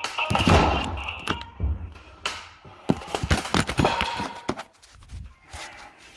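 A rapid run of sharp knocks and clicks with low thuds, densest in the first half and thinning out after about four and a half seconds.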